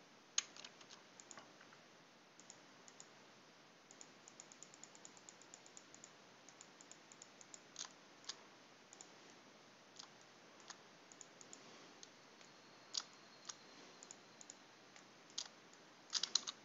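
Faint clicks from a computer mouse and keyboard: a quick run of small ticks a few seconds in, scattered single clicks after, and a cluster of clicks near the end.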